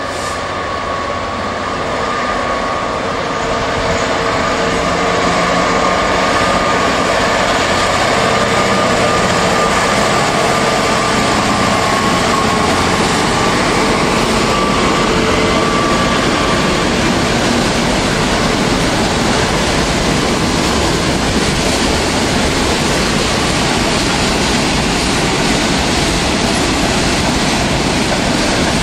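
EWS Class 66 diesel-electric locomotive, with its EMD two-stroke V12, running past with a train of bogie hopper wagons. The sound builds over the first few seconds, and a steady engine whine fades about halfway through, leaving the even rush and rumble of the wagons' wheels on the rails.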